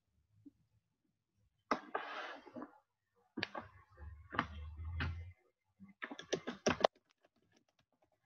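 Typing and clicking on a computer keyboard, picked up by the microphone: irregular single key strikes, then a quick run of key clicks near the end.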